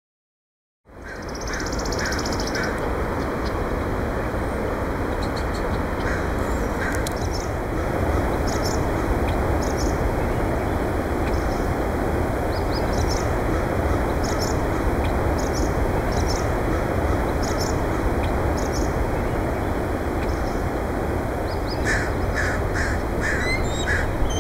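Series of short, repeated bird calls over steady wind noise on the microphone, starting after a moment of silence.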